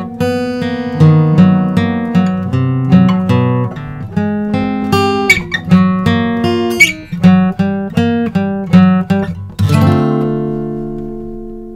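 Guitar intro music: a quick run of single plucked notes, then a strummed chord about ten seconds in that rings out and slowly fades.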